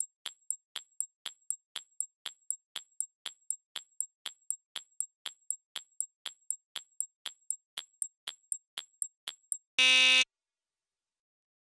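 Countdown-timer sound effect: a steady ticking, about four ticks a second, then a loud half-second buzzer about ten seconds in as the timer runs out.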